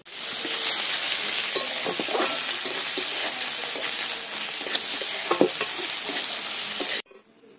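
Chopped onions with garlic and ginger paste sizzling in hot oil in a metal kadai, stirred with a steel spatula that knocks and scrapes against the pan. The sizzling cuts off suddenly about seven seconds in.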